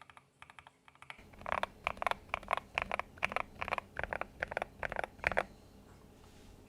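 Custom 60% mechanical keyboard with hand-lubed Gateron Cap Yellow linear switches, an aluminium plate, a foam-filled case and PBT XDA keycaps being typed on. The keystrokes are soft for about the first second, then louder and evenly paced at about four a second, and they stop a little before the end.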